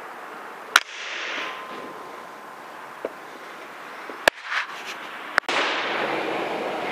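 PCP air rifle firing: a sharp crack about a second in, with two more sharp cracks later on, over a steady background hiss.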